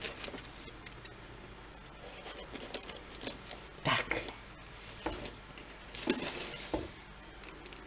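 Snap-off utility knife blade scraping and slicing along packing tape on a cardboard box, in short scratchy strokes with small clicks and cardboard rustles as the box is handled; the strongest strokes come about four and six seconds in.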